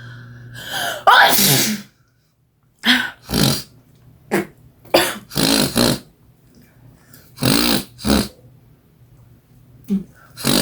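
A woman sneezing over and over in a fit, roughly ten sneezes a second or so apart, from an attack of allergic rhinitis.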